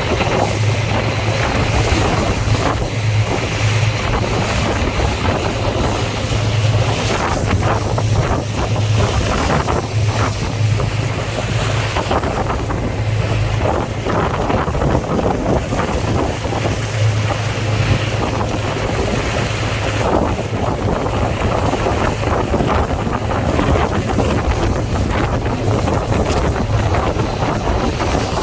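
Boat under way at sea: a steady low engine drone, with wind buffeting the microphone and water rushing past.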